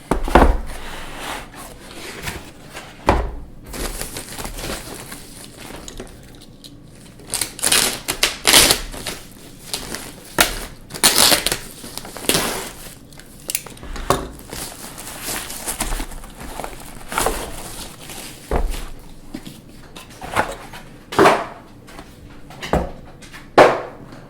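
Unboxing a coffee maker: cardboard and plastic packaging being handled, with irregular rustles, crinkles and sharp knocks.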